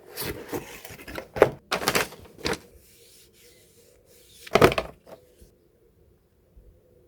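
Handling noise: a run of short knocks and rubbing sounds over the first two and a half seconds, then one louder knock at about four and a half seconds.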